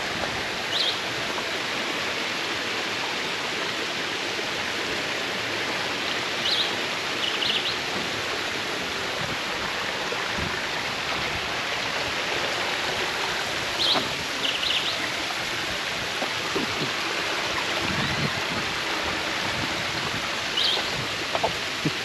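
Waterfall and river water rushing steadily, with a few short high chirps now and then.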